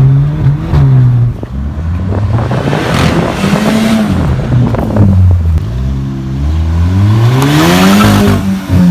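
Volkswagen Golf GTI's turbocharged 2.0-litre four-cylinder running through an open exhaust cutout as the car accelerates: the engine note climbs and falls several times, dropping suddenly at each DSG gear change, with sharp cracks around the shifts.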